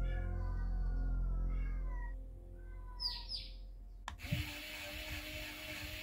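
Background music with a low drone and downward-sliding tones fades out over the first two seconds. About four seconds in there is a click, and a small plastic DC gear motor starts whirring steadily, switched on through its remote-control receiver board.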